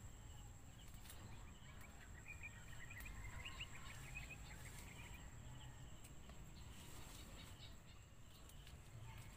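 Faint garden background: a low, even rumble with a bird giving a quick run of short chirps about two seconds in, over a thin steady high-pitched tone.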